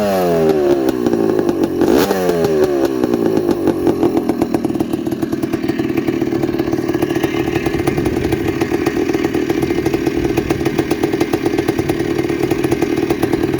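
The rebuilt air-cooled two-stroke single-cylinder engine of a 1984 Honda ATC250R three-wheeler running. It is blipped at the start and again about two seconds in, the revs falling back each time, then it settles into a steady, rapid-firing idle.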